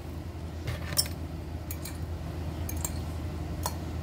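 Light clicks and clinks of kitchen utensils against dishes, about half a dozen scattered over a few seconds, over a steady low hum.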